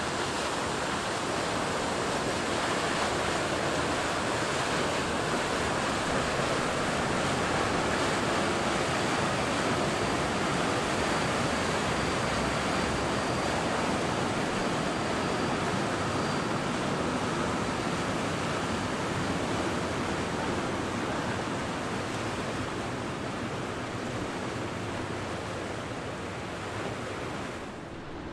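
Steady rushing wash of waves and surf, with a little wind.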